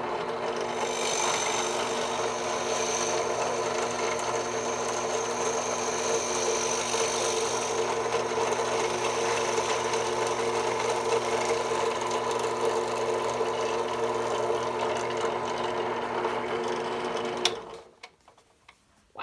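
Harbor Freight benchtop drill press running with a steady electric-motor hum while the bit cuts into wood. A click near the end, and the motor sound drops away.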